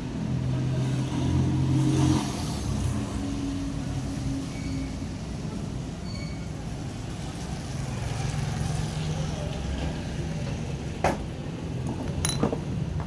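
A motor vehicle engine running, with faint voices and a few sharp clicks late on.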